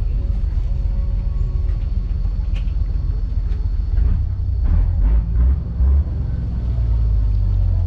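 Low, steady rumble of a tour boat's engine, swelling louder a few times about four to six seconds in.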